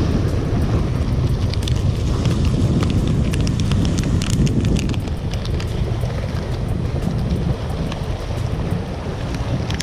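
Wind buffeting the microphone over sea surf washing against breakwater rocks. Between about one and a half and five seconds in, a plastic bait packet crinkles in the hands.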